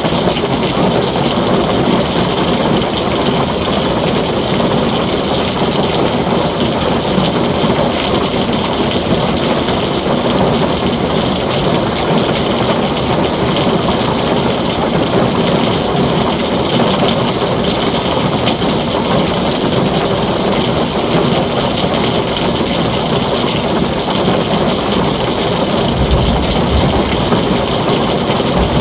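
Heavy rain pouring steadily on a tin roof, a dense unbroken hiss. A short low rumble of thunder comes near the end.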